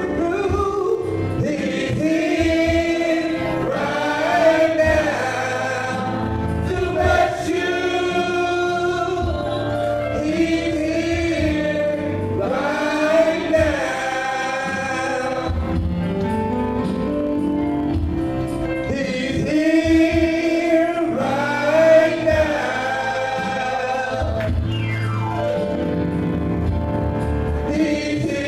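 Gospel choir of men and women singing in harmony, in long held phrases that swell and fall.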